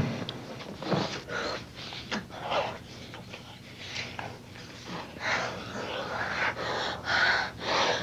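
A couple kissing and breathing, in short, irregular breaths.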